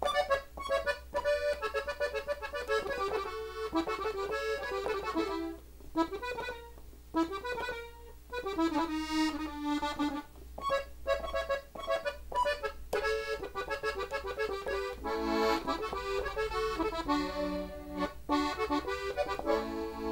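Gabbanelli three-row diatonic button accordion in E, played in the key of D: the intro of a norteño song in fast runs of single notes, turning to pulsing repeated chords in the last few seconds.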